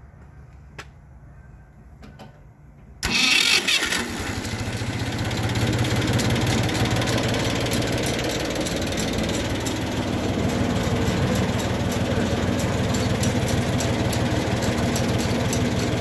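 Ford 4000 tractor engine cranked over by its starter about three seconds in, catching within about a second and then running steadily. A few faint knocks come before the start.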